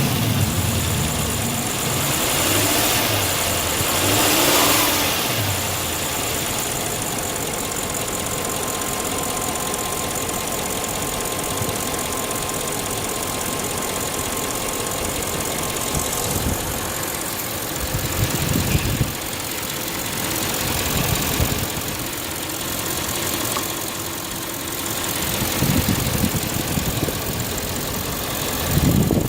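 Audi S8 engine idling, with the revs rising and falling in short throttle blips during the first few seconds and a few more blips later on.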